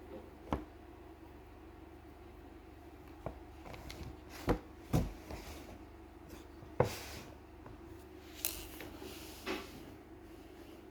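Packaging being handled during an unboxing: a scattering of short knocks, clicks and rustles, a few of them sharper, over a steady low hum.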